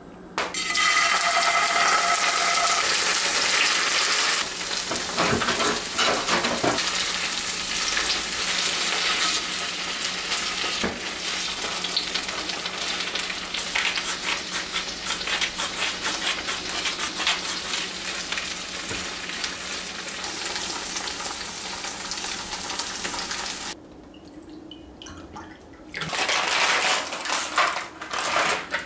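Kitchen tap running water into a sink, a dense splashing hiss with a low hum along with it. It shuts off suddenly about 24 seconds in, then runs again for a couple of seconds near the end.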